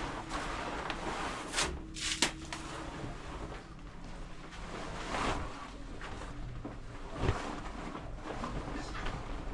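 A few sharp knocks and clatters over a steady rushing noise.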